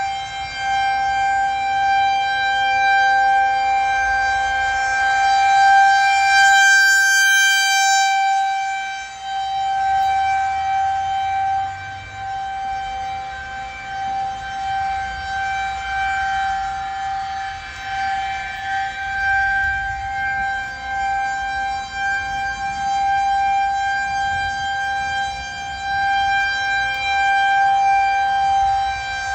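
Federal Signal 2001-130 outdoor warning siren sounding a steady tone for a tornado warning. Its loudness swells and fades as the rotating horn turns, loudest about six to eight seconds in.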